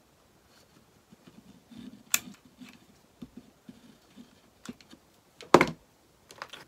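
Handling sounds of wooden craft pieces on a plywood worktable: scattered light taps and clicks, a sharp click about two seconds in, and a louder knock about five and a half seconds in as a hot glue gun is set down on the table.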